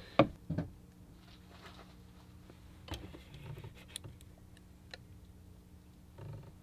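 A few soft clicks and finger taps on a Victron GX Touch 50 touchscreen display and its mount as it is pressed into place and tapped, over a faint steady electrical hum.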